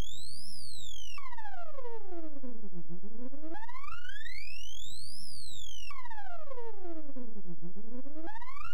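Electronic tone with overtones sweeping smoothly up in pitch for about two seconds, then back down, over and over, jumping suddenly in pitch where one sweep gives way to the next.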